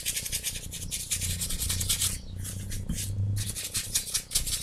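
Paintbrush bristles scrubbing quickly over the textured surface of a figure, working a thinned turquoise paint over its blue base coat, with a short break a little past halfway.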